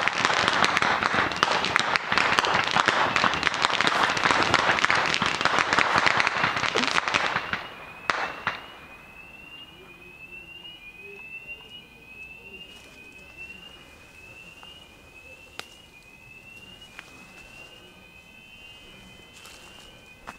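Fireworks crackling in a dense barrage that dies away about seven seconds in, with a couple of last pops. After that an electronic alarm sounder keeps repeating a short rising sweep, roughly one a second and faint, with the odd faint bang.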